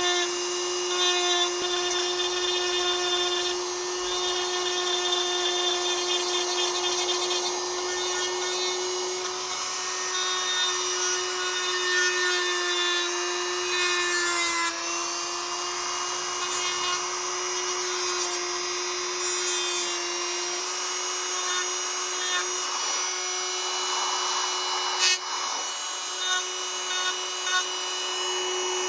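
Corded handheld rotary tool running at a steady high whine while its small bit grinds a small metal knife blade; the pitch sags slightly once about halfway through as the bit is pressed in. There is a single sharp tick late on.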